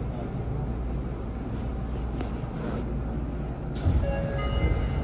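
Interior of a Yokohama Municipal Subway 3000R train car at a station: a steady low rumble and hum, then a sudden change about four seconds in, with a short chime of a few tones.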